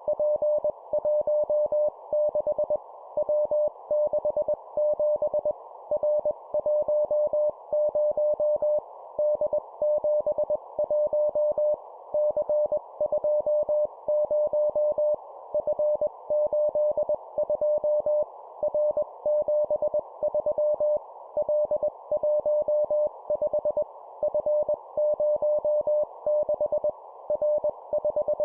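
Morse code at 20 words per minute: a single steady tone keyed on and off in dots and dashes, sending three-character practice groups of a letter and two numbers, with short pauses between groups. A steady hiss of noise sits behind the tone.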